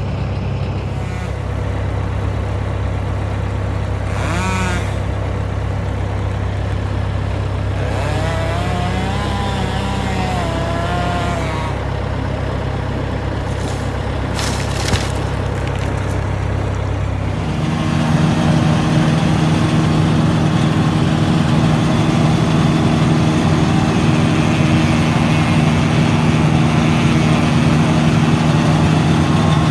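Engine running steadily at a low note; a little over halfway through it steps up to a higher, louder speed and holds there.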